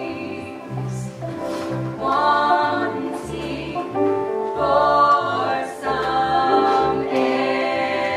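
Women's voices singing a choral song in close harmony, over a low bass line that steps from note to note about twice a second.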